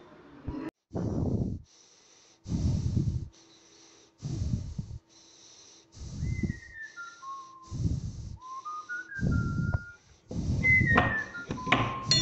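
A high whistled melody of short notes stepping downward, over heavy noisy pulses about every second and a half and a faint steady low drone.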